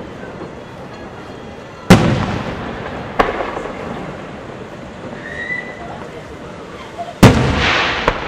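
Large aerial firework shells bursting: two heavy booms about two seconds and seven seconds in, each trailing off in a long rolling echo, with a smaller sharp crack just after the first.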